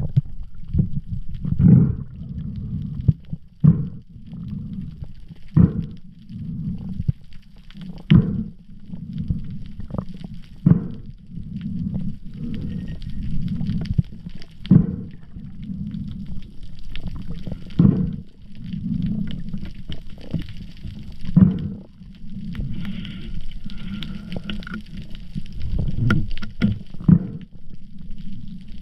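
Water sloshing and gurgling around a camera held at the water's surface, with most of the sound deep and muffled and sharp knocks every couple of seconds.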